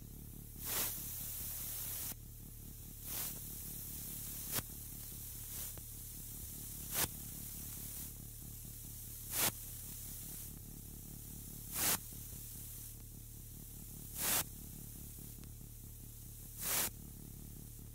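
Electronic music made of filtered noise: a steady hiss over a low hum, crossed by short swells of noise, about one every two and a half seconds.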